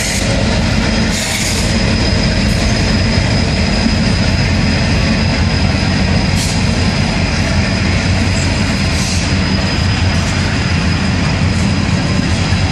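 Freight train passing close by: the end of a diesel locomotive and then freight cars rolling past, wheels rumbling steadily over the rails with a few sharper clanks.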